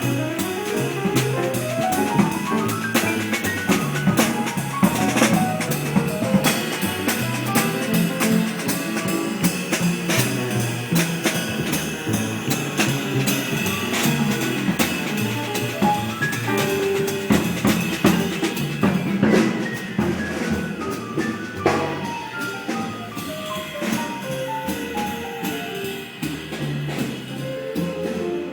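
Jazz piano trio playing: acoustic piano, double bass and drum kit. Busy drumming and cymbals run under the piano, which plays a fast climbing run near the start and several falling runs in the second half.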